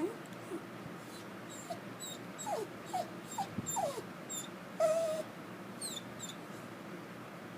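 Dog whimpering in a string of short cries that fall in pitch, then one louder, longer cry with a noisy huff about five seconds in.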